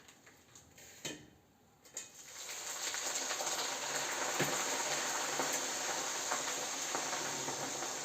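Omena (small lake fish) sizzling and crackling as they fry in oil in a pan, starting about two seconds in after a brief quiet moment with a light knock.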